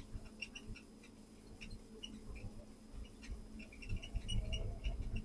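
Squeaky heavy-equipment cab window chirping again and again in short, high squeaks as the machine works, over the low hum of the machine's engine, which swells briefly about four seconds in.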